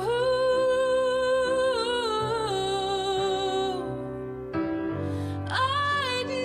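Recorded ballad music: a singer holds long, slowly wavering notes over soft sustained accompaniment. The voice breaks off briefly about four seconds in, then comes back on a new held note.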